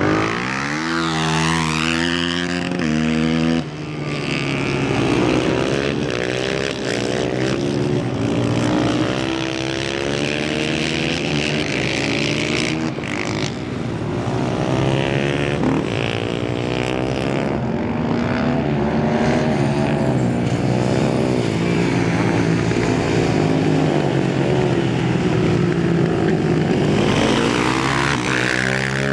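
Several supermoto motorcycle engines are revving hard and dropping back as the bikes accelerate and brake around a race circuit, with the pitch rising and falling throughout. One bike passes close in the first couple of seconds with a falling pitch, and another passes close near the end.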